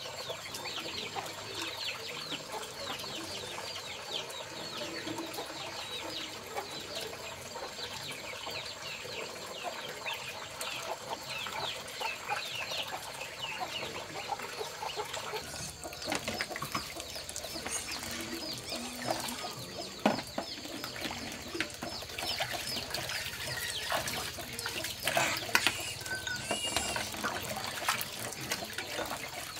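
Chickens clucking, with many short, high, falling chirps throughout and a few sharp knocks past the middle, the loudest about 20 seconds in.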